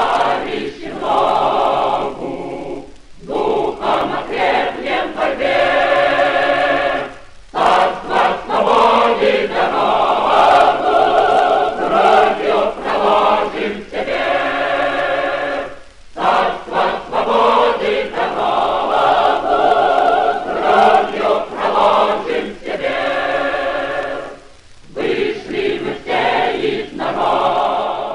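A choir singing in long phrases, with short breaks between them.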